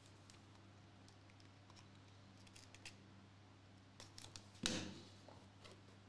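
Mostly near silence with a faint low hum. A few faint ticks come in the middle, and about four seconds in a small blade scrapes across the seal sticker on a small cardboard box, ending in a sharp click.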